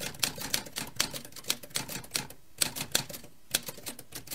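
Typewriter keys clacking in a quick, irregular run of sharp strikes, about four or five a second, with two short breaks around two and three seconds in. It is a typing sound effect laid over text appearing letter by letter.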